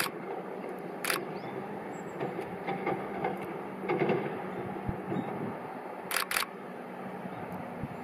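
Camera shutter clicks: one sharp click about a second in and a quick pair of clicks a little after six seconds, over a steady low background rumble.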